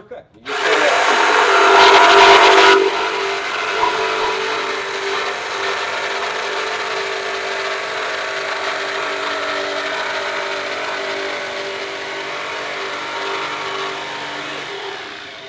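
Corded jigsaw cutting a curve through a pine board: the blade's reciprocating buzz starts abruptly about half a second in, is loudest for the first two seconds, then runs steadily and winds down near the end.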